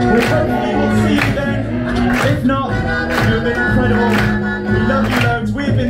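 A cappella vocal group singing live, a sung bass line and harmonies held under a lead voice, with a beatboxed beat landing about twice a second.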